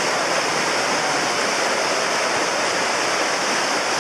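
Steady, even rushing of muddy floodwater running over rocks.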